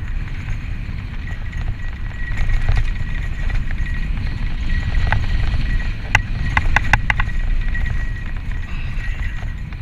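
Santa Cruz Tallboy LTC mountain bike riding fast downhill on a dirt trail: low wind rumble on the microphone with tyre noise and the bike's rattle over the ground, and a steady high-pitched whine throughout. A quick run of sharp clicks and knocks comes about six to seven seconds in.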